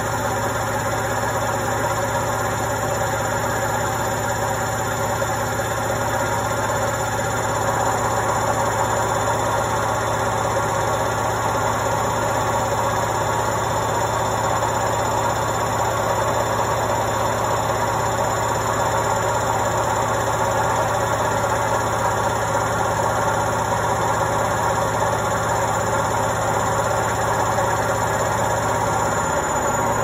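Indesit front-loading washing machine with its drum turning fast, a loud, steady, noisy rumble with a low hum under it. The noise gets somewhat louder about eight seconds in.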